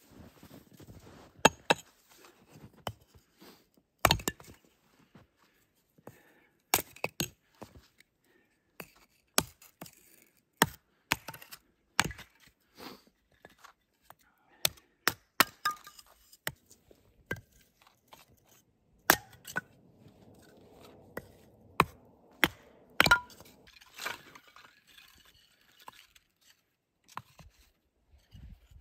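Axe chopping and splitting firewood into kindling on a wooden chopping block: a long, irregular string of sharp knocks and cracks as the blade strikes and the wood splits.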